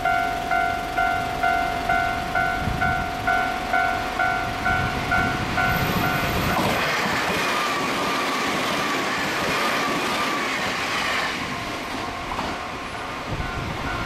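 Japanese level-crossing warning bell ringing, about two dings a second, then a Nankai 50000 series Rapi:t express train passes close by from about six and a half seconds in: a loud rush with a slowly falling whine that drowns the bell. The train noise eases off after about eleven seconds and the crossing bell is faintly heard again near the end.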